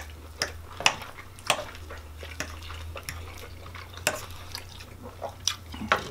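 Knife and fork clinking and scraping against plates as steak is cut, in scattered sharp clicks about one or two a second.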